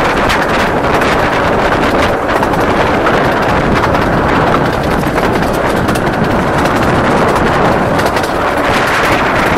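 Loud, steady rush of wind over the microphone held out of the window of a moving 15-inch-gauge miniature train, mixed with the train's running noise.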